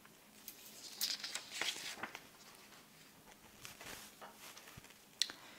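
Paper and a transparent grid sheet being handled and lifted off a table: soft rustling and crinkling, busiest about a second in, with scattered light taps and one sharp click near the end.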